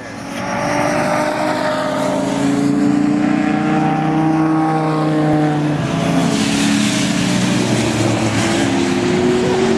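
Supercharged Infiniti G35's V6 engine, fitted with a Vortech supercharger, running under load on a road course. Its pitch sinks slowly through the middle, then climbs again near the end.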